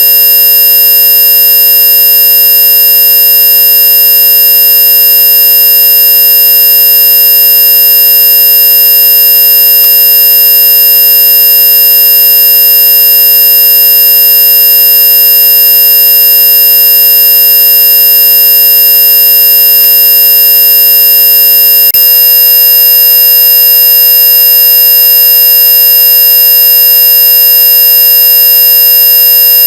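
Loud, steady electronic hearing-test tone: several pitches sound together, from a mid tone up to a very high whine, without any change. A faint tick comes about two-thirds of the way through.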